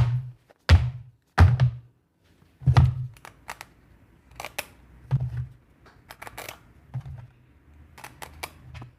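A small boxed kit being handled on a table: several sharp thunks of the box being set down or tapped in the first three seconds, then lighter clicks and packaging rustle.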